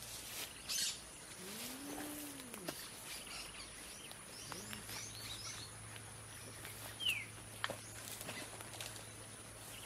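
Quiet rural outdoor ambience: scattered short bird chirps, one falling chirp about seven seconds in, and a low drawn-out call that rises and falls in pitch about a second and a half in, with a few faint clicks.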